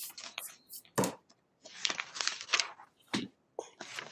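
Papers and a spiral sketchbook being handled and shuffled on a desk: rustling and scraping, with a few sharp knocks, the clearest about a second in and again about three seconds in.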